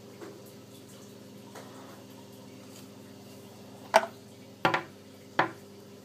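Steady hum of a small aquarium pump in a sump, over trickling water. Three sharp knocks come about four seconds in, then twice more within a second and a half, the first the loudest.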